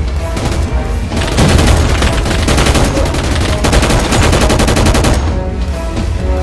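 Mountain-collapse sound effect: a deep continuous rumble, with a dense run of rapid crackling from about a second in that stops abruptly near the end.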